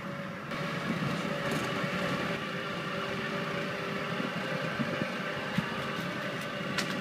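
A vehicle running along the road, heard from on board: a steady drone of motor and road noise, with a few light clicks near the end.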